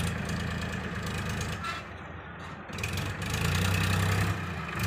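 JCB 3DX backhoe loader's diesel engine running steadily as the backhoe digs, growing louder for about a second just past the three-second mark.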